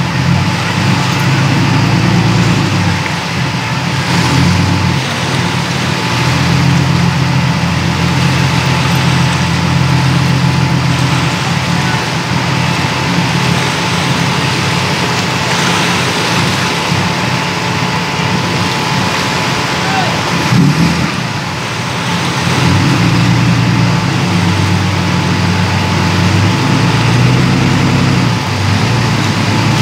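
Engine idling steadily, with voices in the background.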